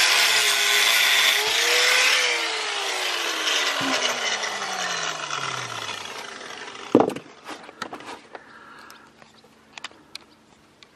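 Angle grinder with a thin cutting disc cutting sheet steel of the car's chassis member. About two seconds in it is let off and the disc spins down, its pitch falling steadily over about four seconds. A single sharp knock comes about seven seconds in, then a few faint clicks.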